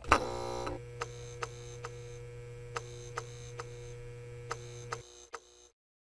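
An electronic ticking sound effect. A sharp click starts it, then a steady hum with held tones runs under regular ticks about twice a second. The hum cuts off about five seconds in, and a few fainter ticks follow.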